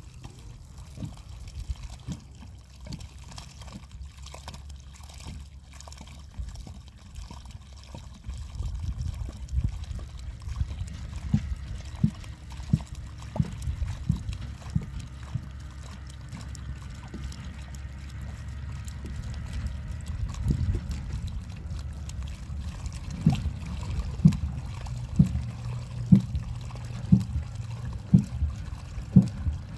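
Water pouring from a plastic jerrycan onto dry soil at the base of a newly planted sapling. It runs with repeated short low knocks, which come more often and louder in the last several seconds.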